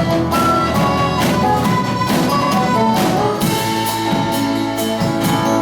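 Instrumental break of an Irish folk-rock song, with drums and melody instruments playing and no singing.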